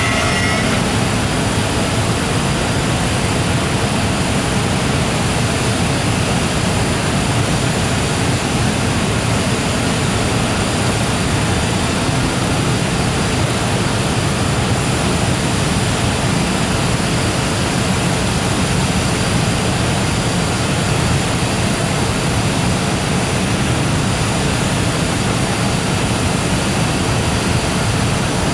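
Freight train of Koki container wagons rolling past at low speed: a loud, steady rumble and rush of wheels on rail with no distinct beat. A fainter whine from the EF510 electric locomotive fades out in the first second.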